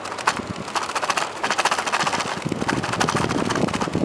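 Bicycle rolling along a wooden plank boardwalk: a fast, steady run of rattling clicks as the tyres cross the joints between the boards.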